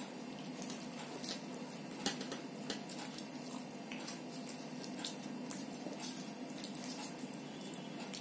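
Wet chewing and mouth sounds of someone eating luchi with curry by hand, with scattered soft clicks and squishes, over a steady low hum.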